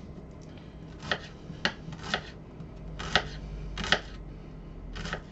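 Kitchen knife chopping shallots on a wooden chopping board: about six sharp taps of the blade hitting the board, unevenly spaced.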